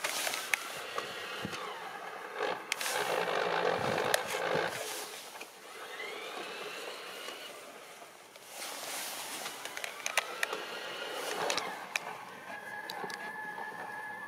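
LGB garden-railway train with a home-built snowplow pushing through snow: a continuous crunching scrape of snow with scattered clicks, loudest a few seconds in. A thin whine from the small electric motor rises in pitch around the middle and holds steady near the end.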